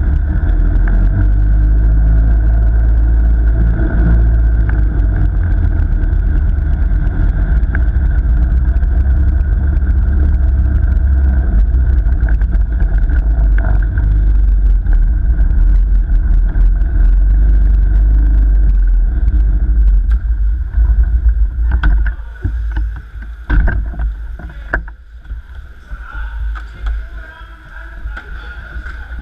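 Ice kart driving on an ice track: a loud, steady low rumble of the kart and its studded tyres on the ice, with a faint steady whine above it. About 22 seconds in the rumble drops away as the kart slows to a stop, with a few sharp knocks and bumps.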